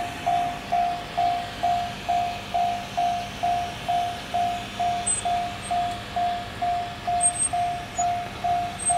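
Japanese railway level-crossing warning bell ringing steadily, an even single-pitched clang repeating about twice a second, warning of the approaching train. The approaching EF210 electric locomotive and its freight train are faint underneath.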